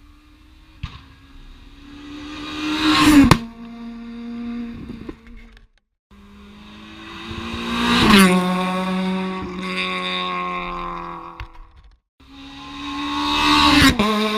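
Rally cars passing at speed, three in turn: each engine swells to a loud peak as it goes by and its pitch drops away.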